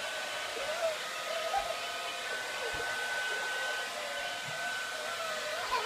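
Hair dryer running steadily, a rush of air with a thin steady whine on top.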